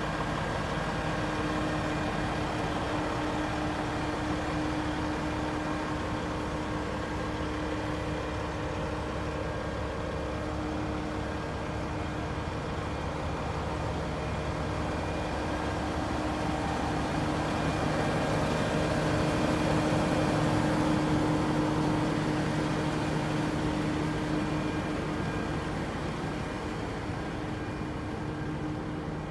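CAT 740B articulated truck's diesel engine idling steadily with a low hum, swelling a little about two-thirds of the way through.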